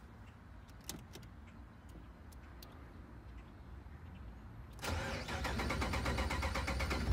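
Push-button start of a 6.1 Hemi V8: after a few faint clicks, the starter cranks with an even rhythm for about two seconds from about five seconds in, and the engine catches at the very end.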